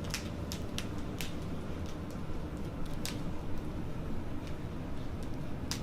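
Low, steady room hum with a few faint, sharp clicks scattered through it.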